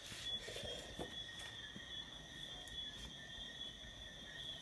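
Insects chirring steadily as a continuous high, slightly pulsing trill, with a few faint clicks.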